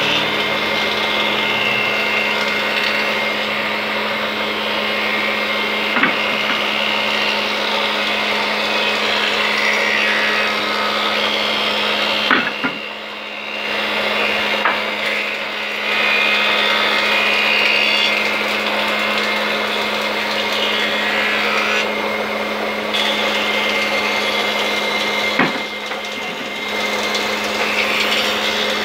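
Workshop machine motor running steadily, a continuous whirr over a constant hum, briefly quieter about halfway, with a few short knocks.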